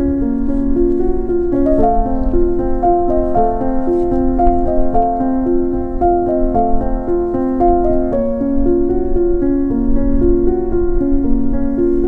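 Background piano music, a calm pattern of sustained notes.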